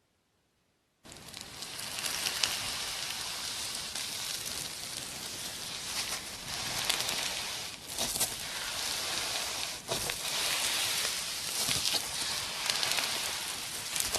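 Slime being squeezed and worked by hand, giving a dense, steady crackling with sharp little pops, starting after about a second of silence.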